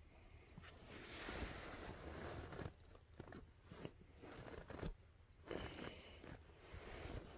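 Rustling and scratching of fabric and fur as a cat shifts and rolls on a quilted bedspread and is stroked by hand, with a few light clicks. There are two louder stretches of rustling, one starting about a second in and a shorter one near six seconds.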